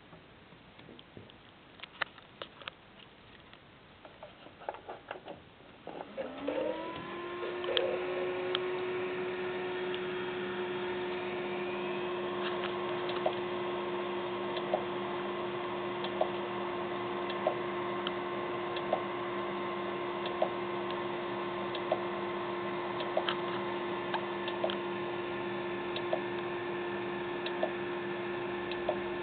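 Seagate 160 GB ATA-100 hard drive spinning up with a rising whine about six seconds in, then running with a steady hum while its heads click about once every second and a half. The drive goes undetected by the computer, and this repeated clicking is the sign of a failing drive.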